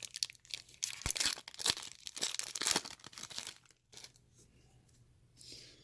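Foil wrapper of a trading-card pack being torn open and crinkled, a dense crackling for about three seconds that then dies away.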